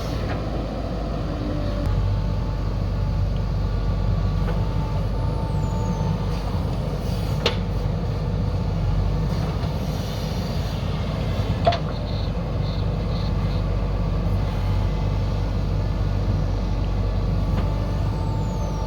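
Heavy construction machinery running steadily with a deep engine rumble. Two sharp knocks stand out, one near the middle and one a few seconds later.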